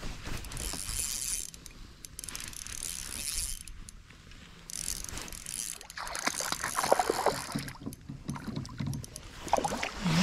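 Fishing reel being cranked, its gears clicking irregularly, while a fish is played in.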